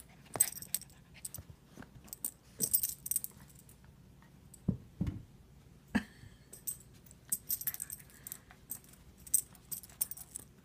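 Small dog tugging and shaking a plush toy stuck in a shoe on a fleece bed: scattered short clicks and rustles, with a couple of soft thumps about halfway through.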